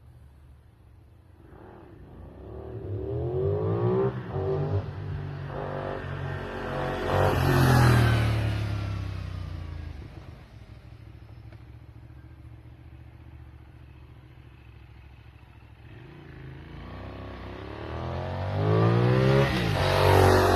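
Benelli 752S parallel-twin motorcycle on its stock exhaust, accelerating up through the gears as it approaches and passes by. It is loudest about eight seconds in, its pitch dropping as it goes past and fades. It builds to a second pass near the end.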